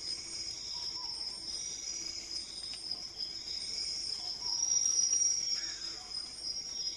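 Rainforest insect chorus at night: crickets trilling steadily in one high tone, with shorter calls repeating every half second or so.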